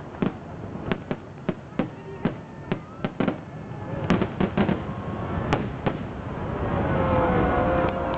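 Aerial fireworks shells bursting in quick succession, a rapid run of sharp bangs. About six seconds in the bangs thin out, and a spectator's long drawn-out voice rises with the crowd noise.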